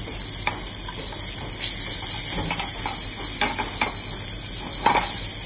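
Yellowtail steaks sizzling steadily in butter in a steel frying pan over a gas flame, with a few light knocks of a metal spoon against the pan.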